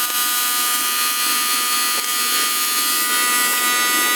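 Electric construction heat gun running steadily: a motor whine made of several steady tones over a rush of blown air.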